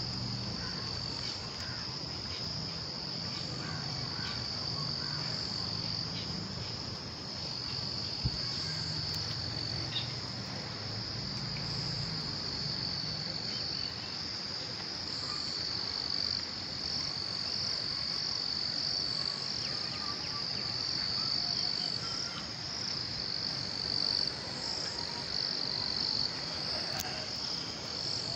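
Steady, high-pitched insect chorus: an unbroken trill that keeps on without pause.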